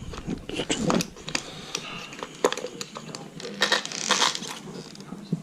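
Small metal hand tools and parts clicking and clinking irregularly while work goes on at an RC car's steering servo, with a couple of short scraping rustles a little under four seconds in.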